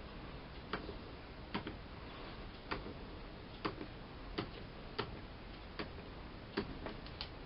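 Miele Softtronic W 204 washing machine running a wash cycle: a steady low running noise with sharp clicks or taps about once a second.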